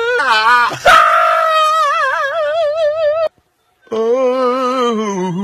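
A man sneezing in song: a wavering sung 'ah' breaks into a sudden loud sneeze burst about a second in, which he draws out into a long note with vibrato. After a short pause, another sung note slides downward.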